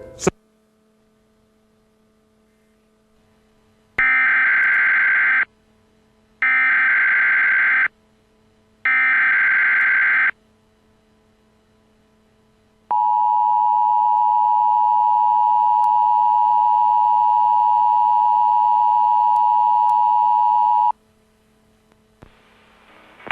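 Emergency Alert System test broadcast: three short bursts of warbling digital header tones (the SAME data header), each about a second and a half long and about a second apart. They are followed by the steady two-tone EAS attention signal, held for about eight seconds before cutting off.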